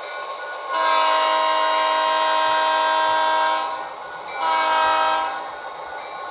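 GP40-2 diesel horn played by a model locomotive's Tsunami 2 DCC sound decoder: one long blast about a second in, then a shorter blast, over the quieter steady running sound of the decoder's engine.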